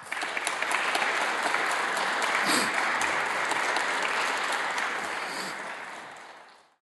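Audience applauding, a dense even clatter of many hands clapping that swells in at once and fades away over the last couple of seconds.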